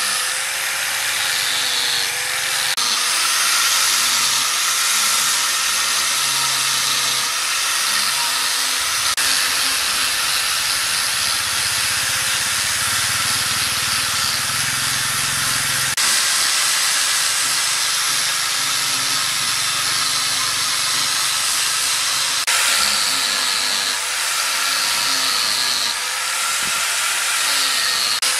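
Electric angle grinder with a sanding disc running and sanding bare wood: a steady motor whine under a loud hiss of the abrasive on the wood, with a few sudden shifts in the sanding noise.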